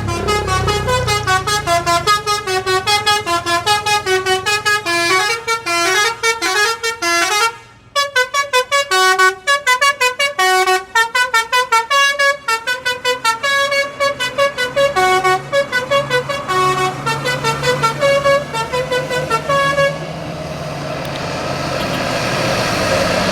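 Telolet musical bus horn playing a fast melody of short stepped notes, with a brief break about eight seconds in. The tune stops about twenty seconds in, leaving a steady, rising vehicle noise.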